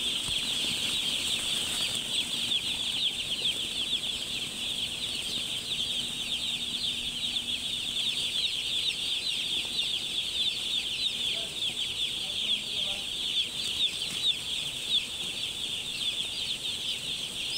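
A dense, unbroken chorus of peeping from thousands of young chicks crowded on a brooding house floor, many short falling chirps overlapping. A faint steady hum lies underneath.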